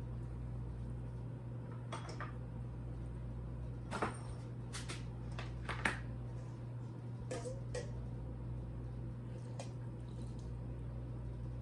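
A few separate clicks and knocks of plastic food containers and lids being handled, the two loudest about four and six seconds in.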